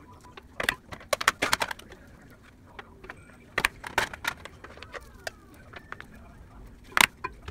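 A rice paddle knocking and scraping against an enameled cast-iron cocotte and plastic containers as cooked rice is scooped out. It comes as clusters of sharp clicks and taps, the loudest about seven seconds in.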